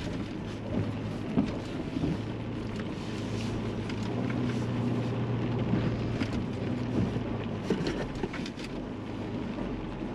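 Toyota 4Runner engine running steadily at low speed as the truck crawls over wet rock, heard from inside the cab, with scattered light ticks of rain on the body.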